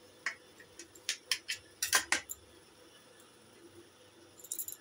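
Kitchen knife slicing through steamed taro-leaf rolls, its blade clicking against a steel plate in a series of sharp ticks, with a quick cluster of clicks near the end.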